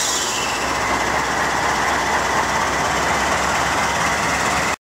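GE Dash 9-40CW diesel-electric locomotive passing close by, its engine and running gear making a loud, steady noise. A high hiss fades during the first second, and a steady high whine runs through the rest.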